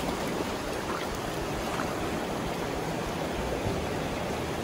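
Steady rush of a mountain stream's flowing water, an even hiss with no breaks.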